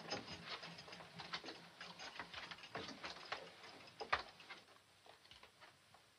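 Footsteps on a floor: an irregular patter of small taps that fades out, with one louder knock about four seconds in.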